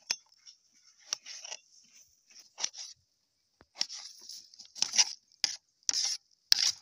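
Knife cutting and dicing tomato on a plate, the blade knocking and scraping against the plate in irregular strokes, with the loudest knocks near the end.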